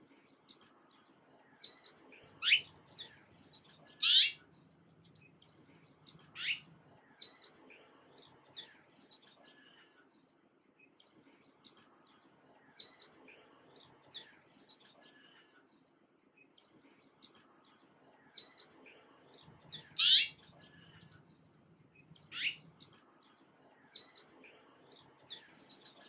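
Songbirds chirping: many short, scattered calls, a few of them loud, sharp rising chirps. The same pattern comes round again about seventeen seconds later, as in a looped recording.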